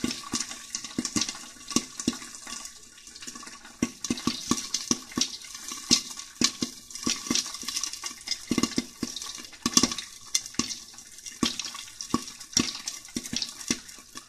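Popcorn popping in hot oil in a lidded wok: irregular sharp pops, several a second, over a steady oil sizzle. The popping is going a little slower than usual.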